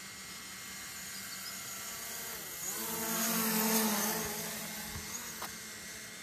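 Camera drone's propellers whining as it flies past: the pitch dips and then climbs about two and a half seconds in, the whine is loudest near four seconds, then fades over a steady hiss.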